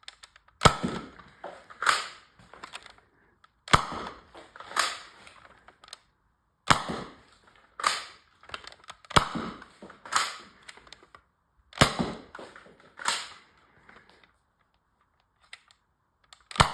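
Modified Nerf dart blaster being primed and fired over and over: pairs of sharp plastic clacks about a second apart, a new pair every two to three seconds.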